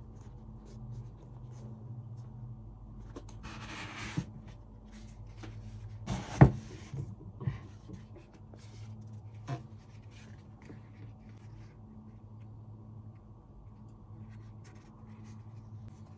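Hands handling football boots and their foam insoles: soft rubbing and small clicks, a brief swish about four seconds in, and a sharp knock a little after six seconds, over a low steady hum.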